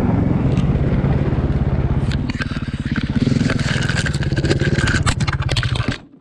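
Snowbike engine running with a steady low note and an even rapid beat, with scraping and clattering from about two seconds in. The sound cuts off suddenly near the end.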